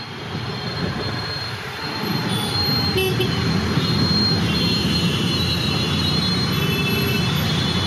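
Steady road traffic noise with a low rumble of vehicles moving along a road.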